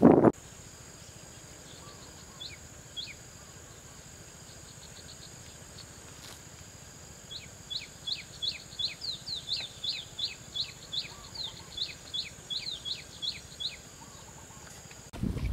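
A steady high insect drone, with a small bird giving two short chirps a couple of seconds in, then a fast run of short falling chirps, about three a second, from about halfway to near the end. A brief rush of noise cuts off just after the start.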